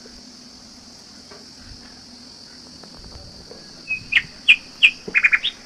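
Small birds chirping in short, sharp calls from about four seconds in, some in quick runs of several notes, over a steady high hiss.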